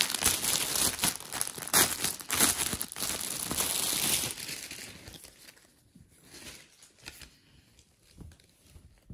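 Clear plastic packaging bag crinkling and rustling as a dress is pulled out of it, loud for about the first four seconds, then only faint, scattered rustles.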